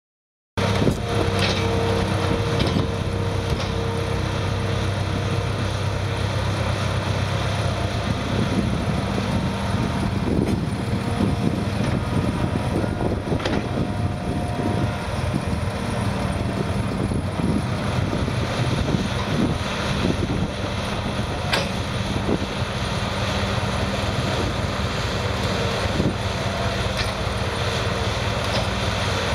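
Caterpillar 225 excavator's diesel engine running steadily under load as it digs and swings, with a few sharp knocks through the loading cycle.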